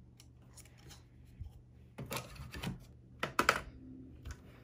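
Hands handling parts inside an open rack server: scattered light clicks, then two louder bursts of clicking and clattering about two and three and a half seconds in, over a faint steady low hum.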